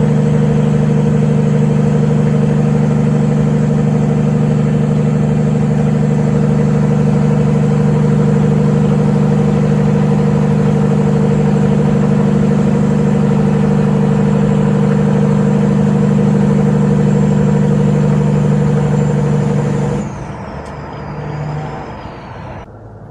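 Caterpillar diesel engine of a Peterbilt 389 semi truck running at a steady speed, a loud even drone. About twenty seconds in the engine note drops away and a high whistle falls in pitch as the truck lets off the throttle.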